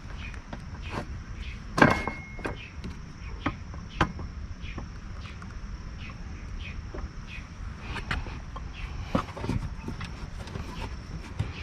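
Scattered knocks and clinks of metal pieces and tools being handled in a workshop setting, with the loudest knocks about 2 s and 4 s in, and a faint steady high whine underneath.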